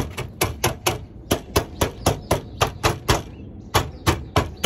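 Rapid, regular sharp knocking, about four knocks a second, with a brief pause a little past the middle.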